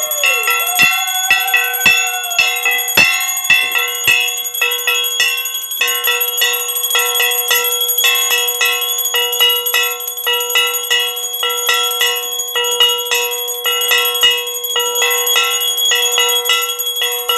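Metal bells ringing in rapid, steady strokes during the aarti lamp offering to Kali, with long ringing overtones. In the first two or three seconds a long held note sags in pitch and breaks off.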